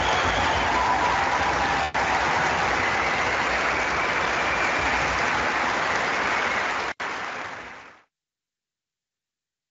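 Concert audience applauding, a steady dense clapping with two momentary dropouts; it fades out about eight seconds in.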